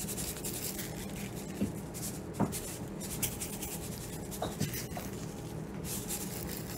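Cajun seasoning shaken from a shaker can over raw chicken wings: a faint, scratchy hiss of granules in a string of quick shakes, with a few light knocks.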